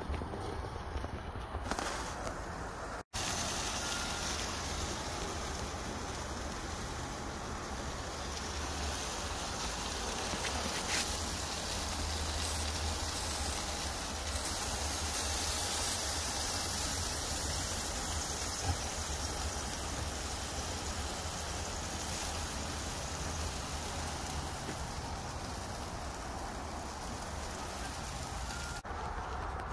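Wind buffeting the phone's microphone: a steady rushing noise with a fluctuating low rumble, cut by a brief dropout about three seconds in.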